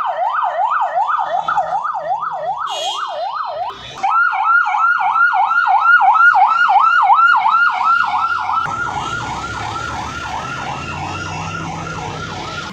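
Police vehicle siren sounding in a fast yelp, each cycle rising then dropping back, about two to three times a second. About four seconds in it breaks off and resumes louder and slightly quicker. From about nine seconds in it is fainter, with steady engine and road noise behind it.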